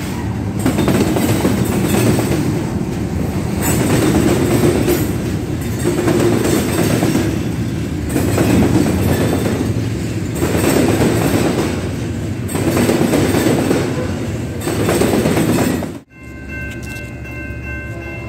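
Freight train of loaded flatcars rolling past close by, wheels clattering on the rails, the loudness swelling and fading about every two seconds as each car goes by, with a mid-train CSX diesel locomotive passing at the start. The train sound cuts off abruptly about 16 seconds in.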